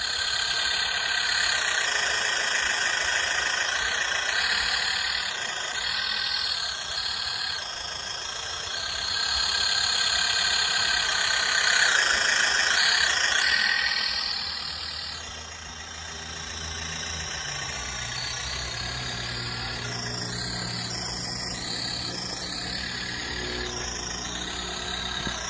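Radio-controlled scale Massey Ferguson 185 tractor running with its front blade down: a steady motor-and-gear whine, loudest about halfway through when it is closest. In the last third a low, even engine-like hum runs under it.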